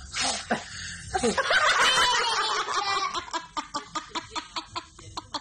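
Toddler laughing: a long, high, wavering squeal, then a run of short, rhythmic laughs at about four a second.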